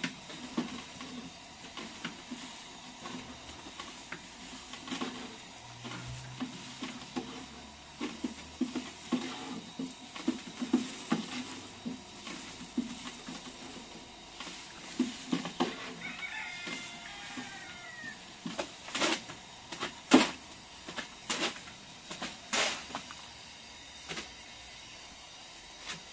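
A long, thin wooden rolling pin rolling flatbread dough out on a round wooden board, with a low rolling rumble and irregular knocks and clicks of wood on wood, the sharpest about three-quarters of the way through. A short warbling call comes in about two-thirds of the way through.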